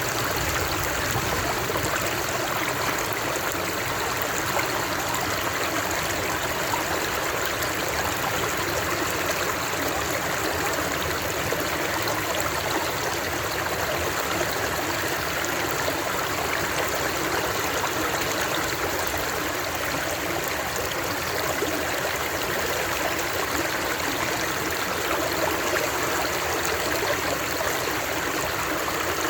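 Flowing water, a stream running steadily with an even rushing splash.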